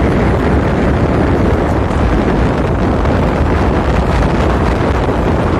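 Wind buffeting the microphone on the deck of a ship under way, a loud, constant rush with no letup.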